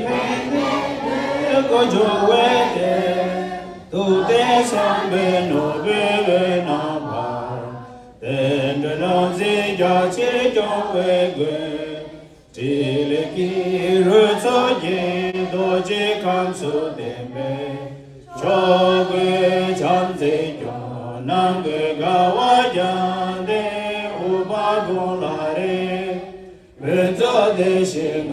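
A group of voices chanting together in unison, in phrases of about four seconds each, with a brief break for breath between phrases.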